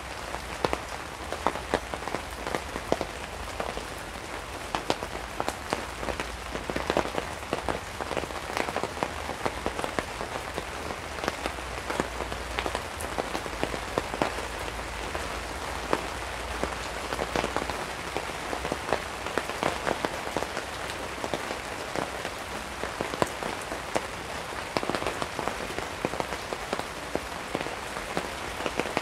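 Steady rain falling on a camping tarp overhead: a constant hiss of rain dotted with many sharp drop taps.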